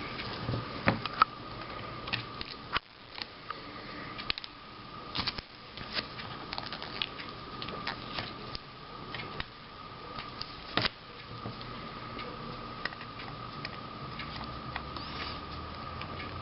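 Miniature screwdriver driving a tiny screw into a laptop's screen mounting: light, irregular clicks and taps of metal on the screw and plastic frame, over a steady faint high whine.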